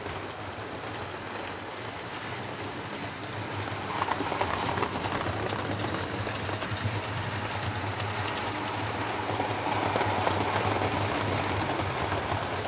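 Model train of a Class 67 diesel locomotive and coaches running on the layout's track: a steady motor whirr with the wheels running on the rails. It grows louder as the train comes near, about four seconds in and again near the end.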